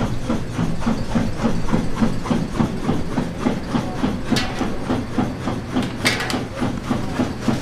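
Factory machinery running with a fast, even knocking rhythm of about five beats a second over a steady low hum, with short hissing bursts about four and six seconds in.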